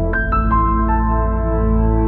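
Calm ambient background music: sustained low chords, with a short falling run of high notes near the start.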